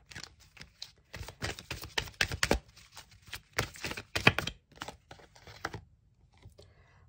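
A deck of oracle cards being shuffled by hand: a quick, irregular run of dry papery clicks and slaps from the card edges, thinning out near the end as a card is drawn from the deck.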